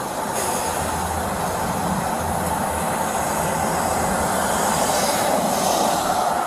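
A steady rushing rumble with no clear pitch, spread evenly across low and high sounds.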